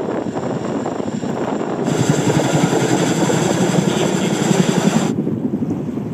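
CH-47 Chinook tandem-rotor helicopter running close by: its two turboshaft engines give a steady high whine over a low rotor rumble, which becomes brighter and louder about two seconds in. About five seconds in the high whine cuts off abruptly, leaving a low rumble with wind on the microphone.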